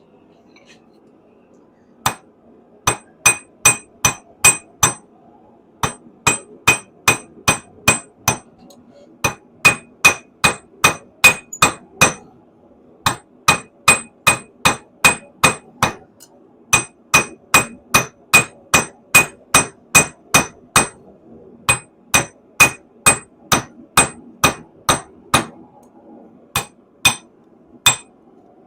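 Hand hammer striking a hot stainless steel rod on an anvil, drawing out a taper: sharp ringing blows, about two to three a second, in runs of several strikes with brief pauses between runs.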